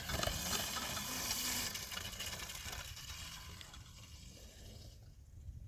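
Pit bike riding away uphill, its noise fading steadily into the distance, with wind rumbling on the microphone.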